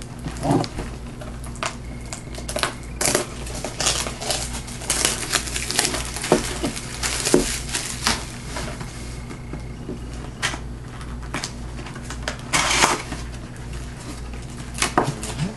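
Clear plastic shrink-wrap crinkling and crackling as it is torn and peeled off a cardboard trading-card box, in irregular bursts of rustling and clicks. Cardboard flaps of the box are handled near the end.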